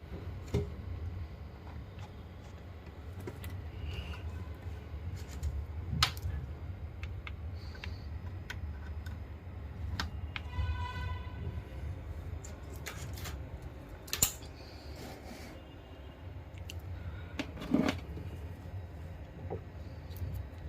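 Computer parts being handled and fitted: scattered clicks and knocks over a steady low hum, with a brief pitched buzzing tone about eleven seconds in.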